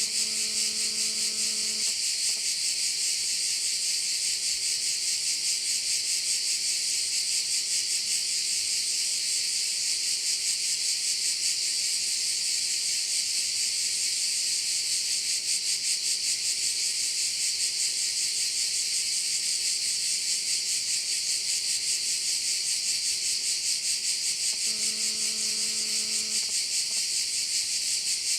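Dense chorus of cicadas, shrill and rapidly pulsing and unbroken. A faint multi-toned sound lasts a couple of seconds at the start and again near the end, over a faint steady low hum.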